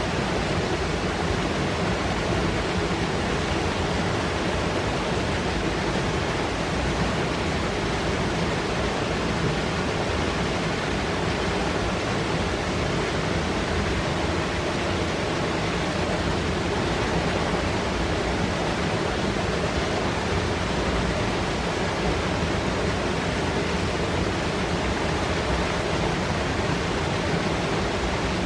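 Fast mountain river rushing and foaming over rocks: a steady, unbroken rush of white water.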